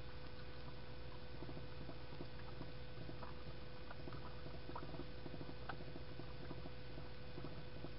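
Faint scattered light clicks and ticks over a steady low hum with a faint steady tone.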